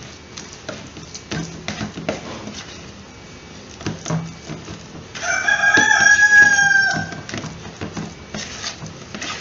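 A plastic spoon scraping and clicking against a plastic bowl, stirring a thick bait mix. Midway, a loud pitched animal call of about two seconds rings out over the stirring and is the loudest sound.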